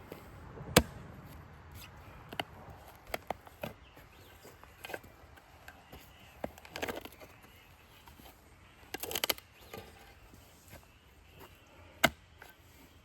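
Irregular, sharp chopping knocks of a hand tool striking wood, about a dozen spaced unevenly with a quick flurry partway through; no chainsaw running.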